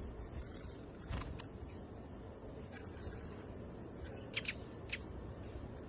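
Small birds calling: faint high twittering early on, then three loud, very short, sharp chips about four and a half seconds in.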